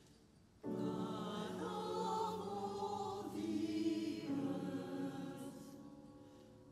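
Small mixed church choir singing with piano accompaniment. A phrase starts suddenly about half a second in, after a brief hush, then fades away over the last couple of seconds.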